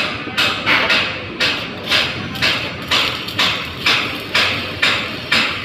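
Hammer striking metal in a steady rhythm, about two blows a second, each blow short and fading quickly; the blows stop near the end.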